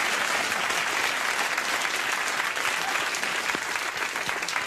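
Studio audience applauding a punchline: dense clapping that thins out toward the end into more separate claps.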